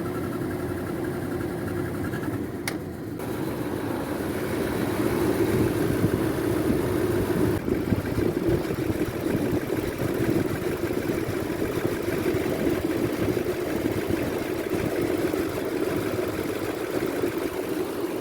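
2007 Nissan Armada's 5.6-litre V8 running with a loud whining drone that swells about four seconds in and stays up, the noise that comes on under acceleration and stops off the throttle. Its cause is undiagnosed.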